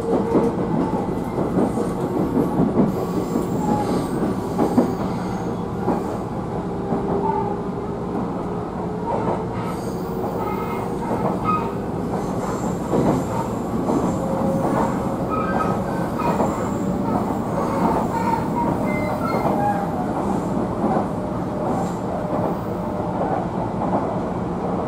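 Electric train running steadily, heard from inside the carriage: a continuous rumble of wheels on the rails, with brief, faint high wheel squeals here and there.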